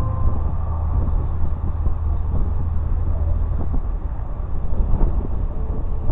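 Wind buffeting the microphone as a steady low rumble, with a few small ticks. A faint steady tone dies away in the first instant.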